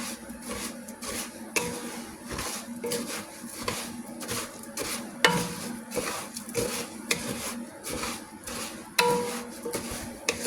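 A utensil stirring and scraping in a pan, with irregular clinks and two sharper knocks about five and nine seconds in, over a light sizzle of food browning.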